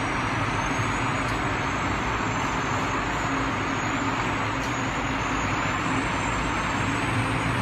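A convoy of army trucks driving slowly past, a steady drone of engines and tyre noise with no breaks.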